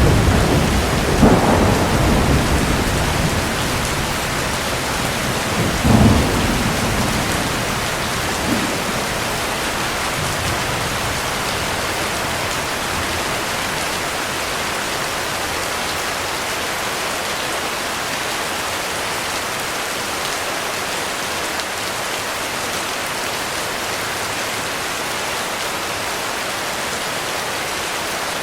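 Heavy rain falling steadily in a thunderstorm, with rolls of thunder rumbling in the first several seconds, the sharpest about 1.5 s and 6 s in, then dying away to rain alone.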